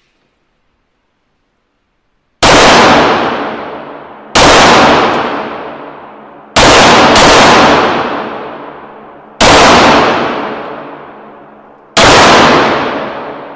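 Six shots from a 9mm Beretta 92FS pistol, starting about two seconds in and spaced two to three seconds apart, with two in quick succession. Each shot is loud and rings out with a long echoing decay.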